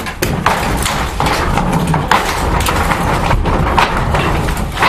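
Irregular series of knocks and cracks, two or three a second, as wooden wall boards nailed to studs are struck and knocked loose.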